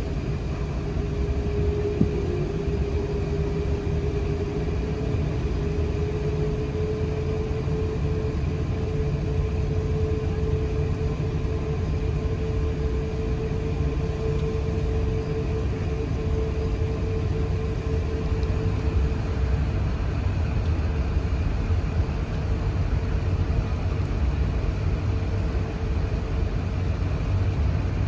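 Steady low rumble inside the cabin of an Airbus A380 with its Rolls-Royce Trent 900 engines running, with a constant hum that creeps slightly higher in pitch. One short click about two seconds in.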